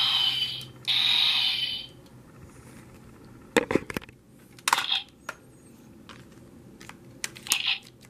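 Handling noise from a plastic toy and the camera. Two rubbing hisses about a second long come near the start, then a few sharp plastic clicks and knocks as the toy is set down on the table.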